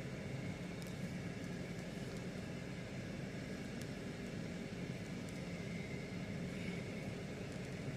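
Steady low rumble of a vehicle heard from inside a car's cabin, with a faint thin whine above it.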